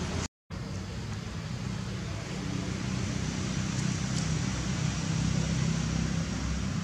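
Steady low rumble of outdoor background noise with a continuous low hum, which drops out completely for a moment just after the start.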